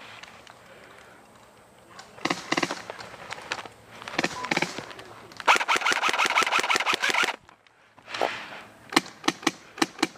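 Airsoft guns firing: short bursts, then a full-auto burst of about two seconds near the middle, then single semi-automatic shots near the end.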